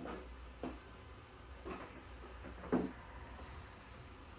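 A handful of short knocks and clunks of metal pieces and tools being handled at a steel workbench, the loudest a little under three seconds in, over a steady low hum.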